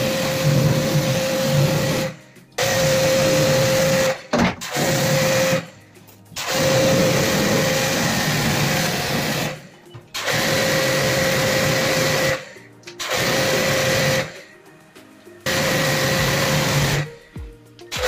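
Electric pressure washer spraying water onto a plastic AC grille, its pump motor running with a steady whine under the hiss of the jet. It runs in repeated bursts of one to three seconds, stopping briefly each time the trigger is released.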